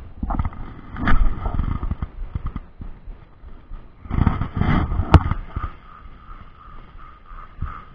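Wind buffeting and handling noise on the microphone as a spinning rod is swung and cast, in irregular rumbling bursts, with one sharp click about five seconds in.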